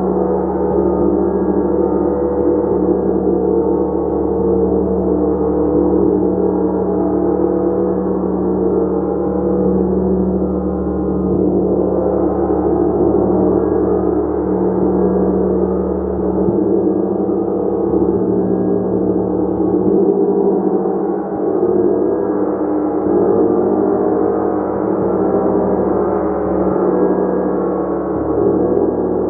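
A gong played continuously, a dense wash of many overlapping tones that swells and ebbs slightly.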